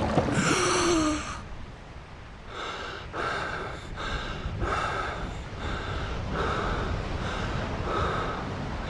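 A person gasps sharply for air once, then pants in quick, heavy breaths, about one and a half a second.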